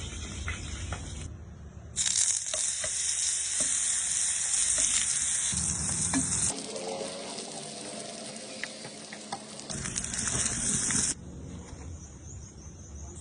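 Beef franks sizzling as they fry in hot oil in a pan, a steady high crackling hiss that gets louder and softer in sudden steps, with a few light clicks of a utensil.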